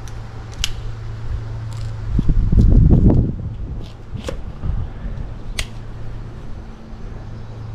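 Tape being pulled off its roll and wrapped around the end of a water-line pipe, with a few sharp clicks and crackles. A heavy rumble of handling comes about two to three seconds in, all over a steady low hum.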